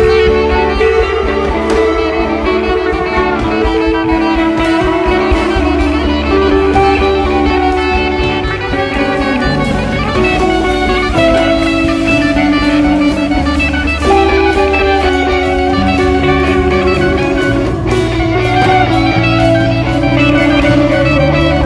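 Loud instrumental music from a rock rhythm-section ensemble: guitars hold sustained notes that shift every second or so over a steady low bass, in a reverberant room.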